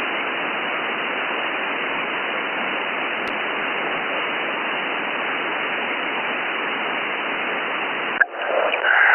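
Steady, even hiss of an SDR receiver's single-sideband audio with no voice on it: the receiver's own background noise, limited to a narrow voice band. There is one faint click about three seconds in, and the hiss cuts off near the end.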